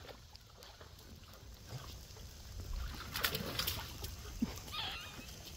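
Water splashing and sloshing as dogs play in a water-filled pool, with a cluster of sharper splashes about three to four seconds in and a faint high wavering sound near the end.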